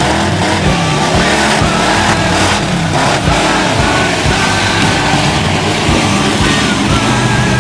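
Mud-bog pickup truck engine revving hard and loud, its pitch rising and falling again and again as the truck churns through the mud pit.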